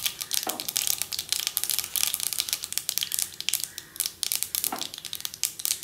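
Mustard seeds spluttering in hot oil with urad dal, a fast, dense crackle of sharp pops: the seeds bursting as the tempering (thalippu) for sambar heats.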